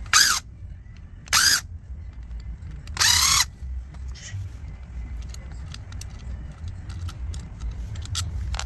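Electric screwdriver with a T8 Torx bit running in three short spins about a second and a half apart, backing out the controller housing's screws. Light clicks and taps of small parts being handled follow.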